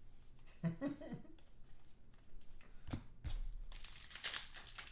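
Foil trading-card pack wrappers crinkling and tearing as a pack is ripped open by hand, with cards being shuffled through; a sharp click near three seconds in.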